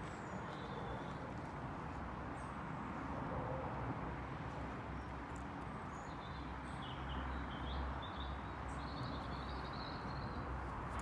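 Steady outdoor background noise, a low hiss and rumble, with a small bird singing faintly in snatches, mostly in the second half.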